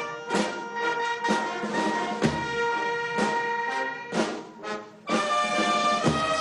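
A military band playing brass chords over drum strokes, about one a second. The sound dips briefly about five seconds in, then a new, fuller chord comes in.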